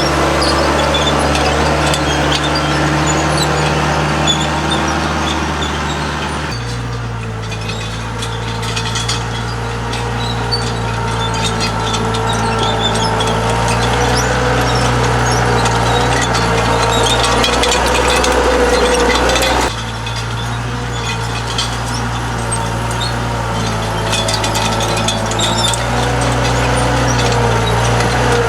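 Bobcat skid-steer loader's engine running steadily under work, its note shifting abruptly twice, with scattered small clicks and knocks over it.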